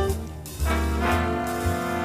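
Jazzy swing background music with brass. It dips briefly, then comes back in full about half a second in.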